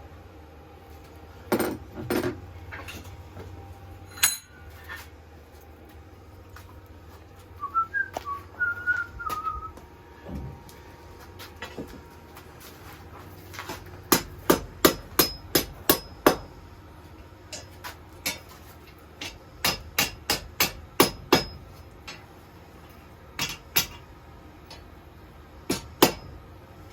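Hand hammer striking hot steel on an anvil while the steel is drawn out, each blow ringing, in runs of several quick strikes with pauses between. A few notes of human whistling come about eight seconds in.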